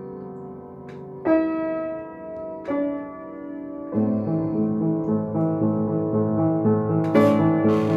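A 90-year-old Schiedmayer & Söhne upright piano, played slowly. Held chords are struck about a second in and again near three seconds, then from about halfway a repeating pattern of notes runs at about three a second. The piano is quite out of tune.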